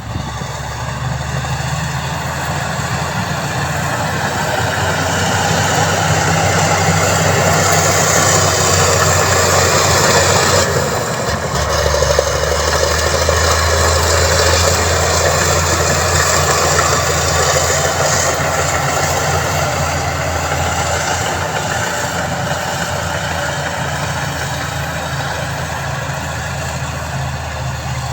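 Heavy construction vehicle's engine running steadily under a broad mechanical rumble, growing louder for several seconds before a brief dip and shift in pitch about eleven seconds in.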